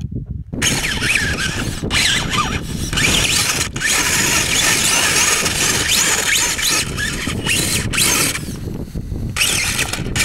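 Brushless electric motor and drivetrain of a Wraith-based RC rock buggy whining under load as it climbs a loose dirt-and-rock slope. The pitch wavers with the throttle, mixed with the tyres scrabbling in the soil. The sound starts about half a second in and eases off briefly a few times, longest near the end.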